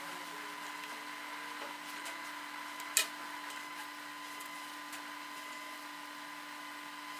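Faint steady room hum, with one sharp click about three seconds in from the metal spoon and silicone spatula dropping brownie batter onto cheesecake batter, and a few faint ticks.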